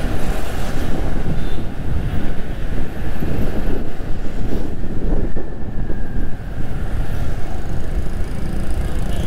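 Wind buffeting the microphone on a moving motorbike, over a steady rumble of engine and road noise from scooter traffic.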